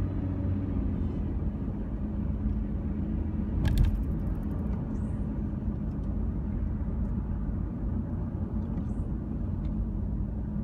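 Steady engine and road rumble of a car, heard inside the cabin while driving. One sharp click about four seconds in.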